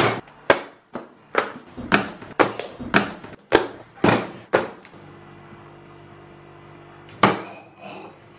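Books set down hard one after another onto a table: a quick series of about ten thuds, roughly two a second, then a single thud about seven seconds in.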